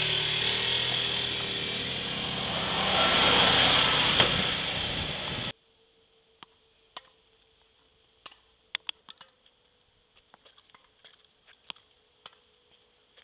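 A small quad bike's engine running, swelling about three seconds in, then stopping abruptly about five seconds in. Then a faint steady hum, with scattered sharp clicks of a tennis ball struck by a racket and bouncing on a hard court.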